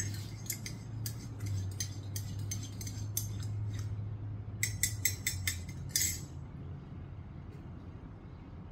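Metal spoon stirring in a coffee mug, clinking against the inside in a quick run of small clinks. The clinks are loudest just before they stop, about six seconds in.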